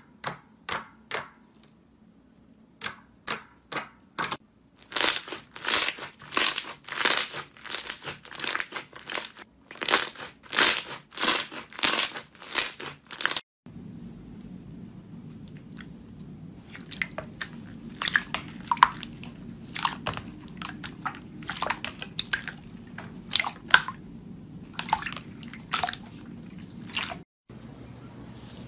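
Slime being squeezed and pressed by hand, giving sharp crunchy clicks about twice a second. About halfway through, a quieter passage follows with scattered softer clicks over a low hum.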